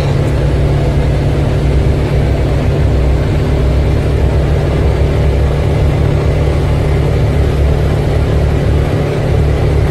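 Polaris Ranger UTV engine running steadily, a constant low hum heard from inside the cab.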